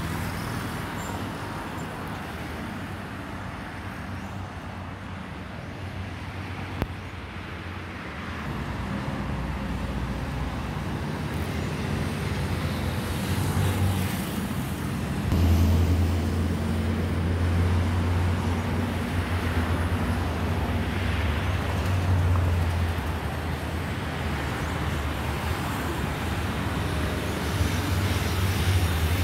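Jet engine rumble of a Boeing 777-300ER's two GE90 turbofans on final approach, a steady low roar that grows louder as the airliner comes nearer, with one sharp click about seven seconds in.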